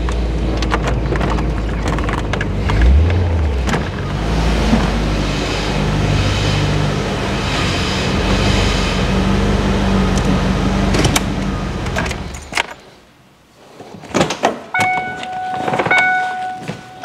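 A car driving, its engine running under steady road and wind noise, which fades out about twelve and a half seconds in. After a short lull a steady high warning tone sounds, broken briefly once, with a few sharp clicks and knocks around it.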